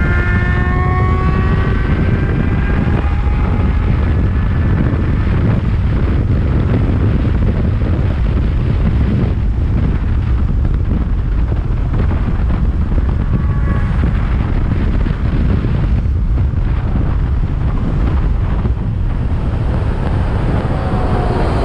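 Motorcycle ridden at speed under heavy wind noise on the rider's microphone. The engine's pitch rises as it accelerates at the start, comes up briefly again about two-thirds through, and falls near the end.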